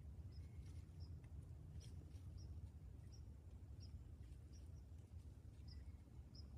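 A small bird's short, high chip notes, repeated about one or two times a second, over a faint low rumble of near silence.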